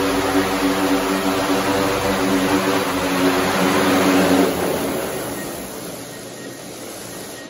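DJI Matrice 300 RTK quadcopter's propellers humming steadily as it hovers low and sets down. About four and a half seconds in, after landing, the motors spin down and the hum fades away.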